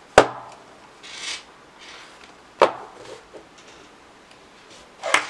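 Handling noise from a plastic digital alarm clock on a table: three sharp knocks about two and a half seconds apart, with brief rubbing in between.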